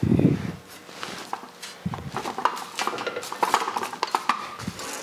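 Sheet-metal floor pan panel being rolled back and forth through an English wheel, the metal rattling and clicking irregularly as the panel flexes, with a heavy thump at the very start. The passes pre-stretch the panel, raising a slight crown before beads are rolled in.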